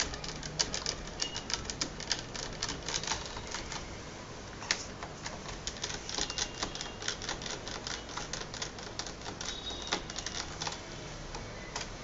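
Small Phillips screwdriver backing out the screws that hold a laptop's hard-drive caddy: a rapid, irregular run of light clicks and scrapes as the tip works in the screw heads and the loosened screws are handled.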